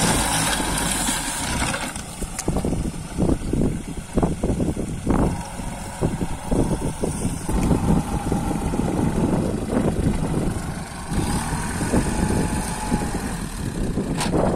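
Kubota 21 hp compact tractor's diesel engine running under load while its rear rotavator churns soil, with many irregular thumps and bumps from about two seconds in.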